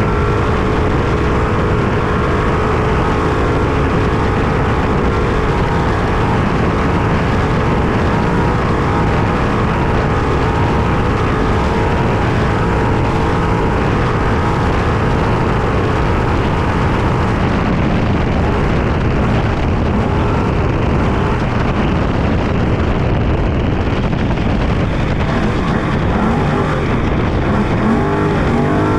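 Trophy truck engine running hard at race speed off-road, heard from inside the truck under a dense rush of noise. Its pitch holds steady at first, and the revs rise and fall near the end.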